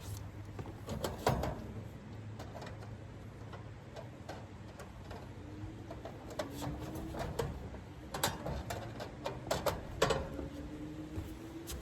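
Scattered clicks and taps of hands and tools working in an open HVAC unit's control compartment, over a steady low hum. A faint tone rises slowly in pitch about halfway through and again near the end.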